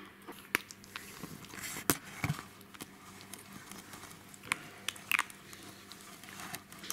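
A puppy chewing food from a stainless steel bowl and nosing about close to the microphone: scattered crunches, clicks and scrapes.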